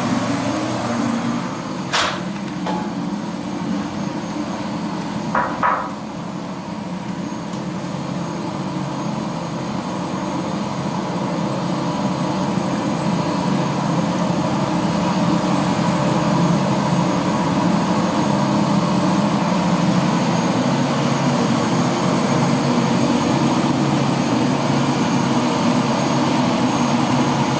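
Helicopter's turbine engine and rotor running: a steady, loud mechanical drone that grows a little louder after the first several seconds, with a sharp click about two seconds in and another around five and a half seconds.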